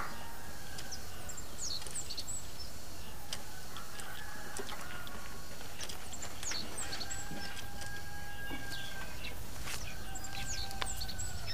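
Village farmyard ambience: chickens clucking, with a few long drawn calls midway, and small birds chirping in short, quick high notes throughout.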